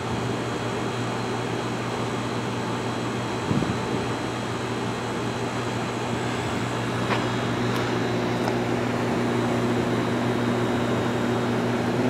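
Pool heat pump running together with the pool's filter pump motor: a steady electric hum over even fan noise.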